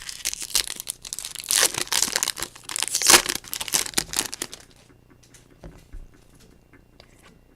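Foil wrapper of a 2015 Topps Chrome trading card pack being torn open and crinkled for about four and a half seconds, followed by a few faint clicks and rustles.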